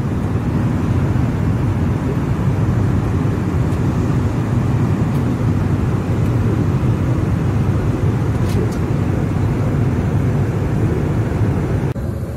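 Steady low rumble of a jet airliner's cabin in flight, engine and air noise.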